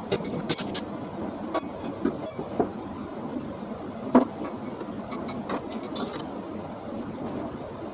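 Scattered sharp metal clicks and knocks, such as tools and bicycle parts being handled and set down, over a steady background noise; the loudest knock comes about four seconds in.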